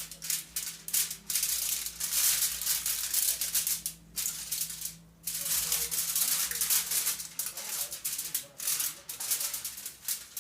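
Repeated hissing, rasping scrubbing strokes, uneven in rhythm, with a couple of brief pauses.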